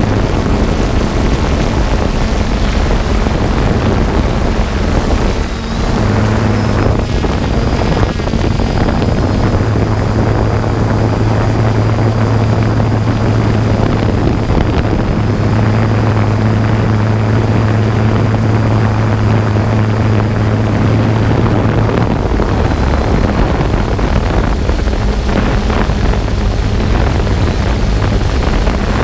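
Quadcopter drone's motors and propellers humming steadily, picked up by the drone's own camera microphone along with rushing wind noise; the hum's pitch shifts a few times as the drone manoeuvres.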